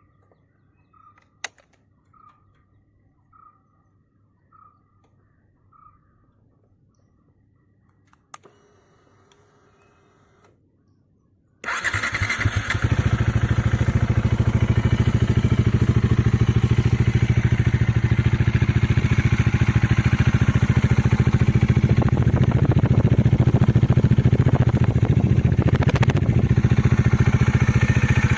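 Single-cylinder motorcycle engine with its stock exhaust being started: six short beeps, then a click and about two seconds of whirring. The engine catches about twelve seconds in and settles into a loud, steady idle.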